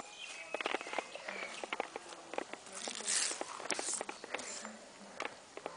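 Close scuffling and rustling as a child struggles over a pile of leaves on gritty pavement: scattered clicks and scrapes, with a short louder rustle about three seconds in.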